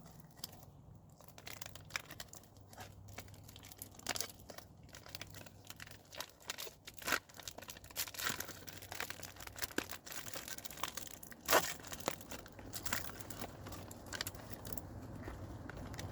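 Foil Pop-Tart wrapper being crinkled and torn open: a run of irregular crackles and rustles, with the sharpest snap about two-thirds of the way through.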